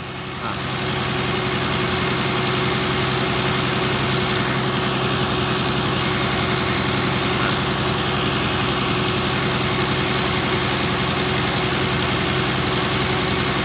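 Engine of a water pump that drains a mine pond, running steadily at constant speed under an even hiss.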